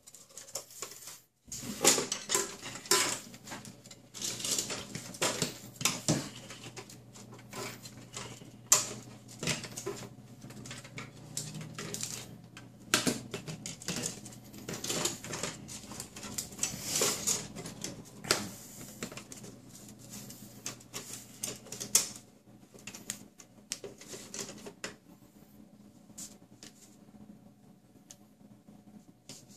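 Hard plastic parts of a Tamiya Scania R620 RC truck kit being handled and fitted: irregular clicks, taps and rattles as the cab is tilted and the front bumper is pushed into place, over a faint steady low hum.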